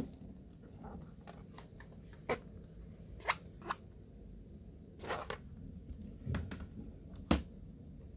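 Scattered small clicks and taps of a laptop RAM module being handled and pushed into its slot, with the sharpest click near the end.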